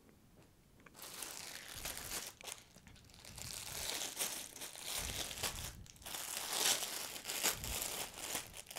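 Clear plastic packaging bag crinkling and rustling as it is handled and opened. It starts about a second in and gets louder near the end.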